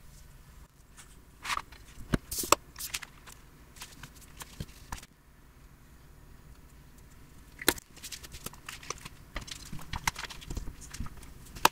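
Scattered light taps, clicks and rustles of hands working at a bench, moving a glass sheet, small weights and a paper booklet cover and setting them down. Sharper clicks come about two and a half seconds in and again near eight seconds.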